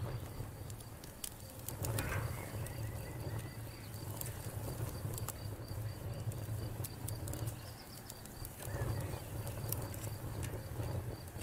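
Wood campfire crackling, with scattered sharp pops and ticks over a steady low rumble, swelling briefly about two seconds in and again near the end.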